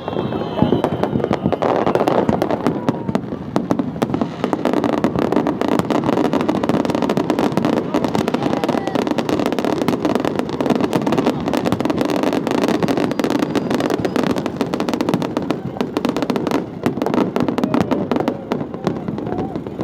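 Many fireworks going off at once in a dense, continuous barrage of crackling pops and bangs.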